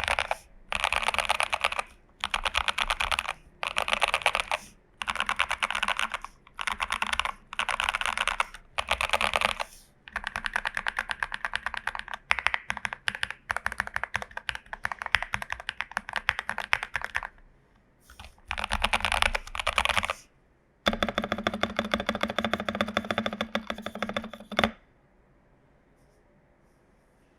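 Typing on a Glorious GMMK Pro mechanical keyboard with tape mod, lubed and filmed Prevail Epsilon switches and PBT dye-sub keycaps: fast runs of keystrokes in short bursts with brief pauses, then a longer unbroken stretch. The typing stops about three seconds before the end.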